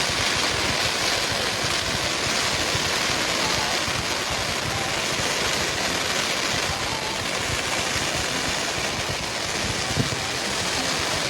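Steady hubbub of a large outdoor crowd waiting for a fireworks display, with one soft knock near the end.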